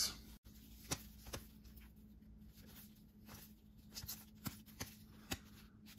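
Trading cards being handled and flipped through by hand: faint, irregular ticks and rustles of card stock sliding and tapping against each other, over a faint steady hum.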